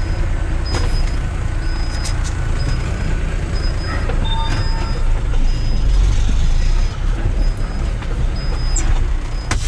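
Cummins ISX15 diesel of a tractor-trailer truck running with a steady low rumble, heard from inside the cab. A high warning beep repeats about every three-quarters of a second, and there is a sharp click near the end.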